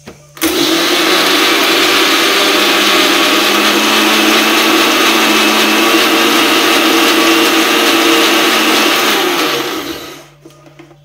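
Electric mixer grinder running, grinding coconut with a little water. The motor starts abruptly about half a second in, runs steadily, then winds down near the end with its pitch falling.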